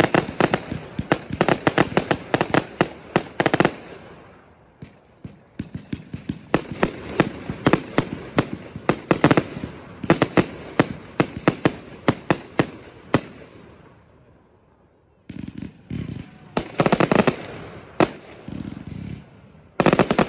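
Fireworks going off in rapid strings of sharp bangs from launches and bursting shells, in three volleys. The second volley dies away to a near-quiet lull, and about three-quarters of the way through a new volley starts abruptly.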